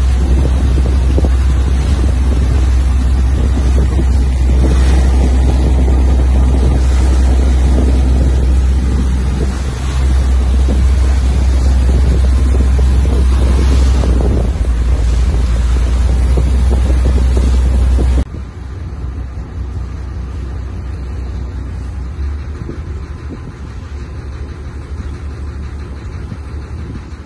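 Fishing boat under way: its engine running, with wind buffeting the microphone and water rushing past the hull. About two-thirds of the way through this cuts off suddenly to a quieter, steady low hum.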